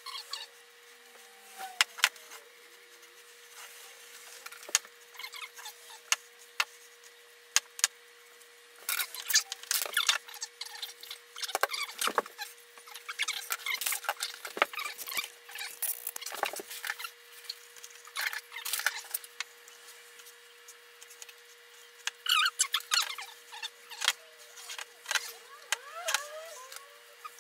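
Clothes iron rubbed and pressed along iron-on wood veneer edge banding to melt its glue: irregular squeaks, scrapes and clicks, in two busy stretches, over a faint steady hum.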